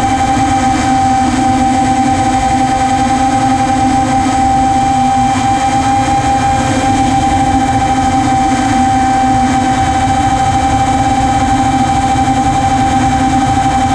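Model aircraft's motor and propeller running at a steady throttle, heard from the onboard camera as a constant whine, with wind rushing over the microphone.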